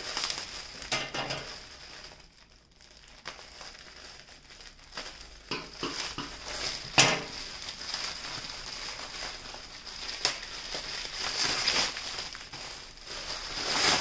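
Bubble wrap and plastic packaging crinkling and rustling as a rolled diamond painting is unwrapped and pulled out. There is a sharp crackle about seven seconds in, and the rustling grows louder near the end.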